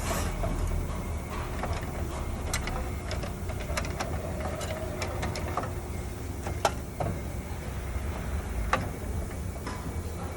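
Scattered light clicks and plastic rustling from wires and zip ties being handled and fastened, with two sharper clicks in the second half, over a low steady hum.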